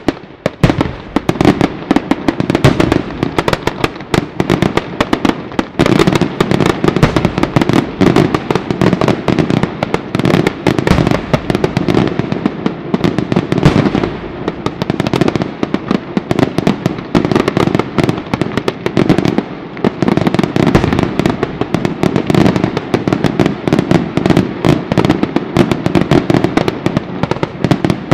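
A batteria sanseverese, a long chain of firecrackers and bombs laid along the ground, going off in a dense, continuous rapid-fire barrage of bangs. It picks up about half a second in and keeps going without a break.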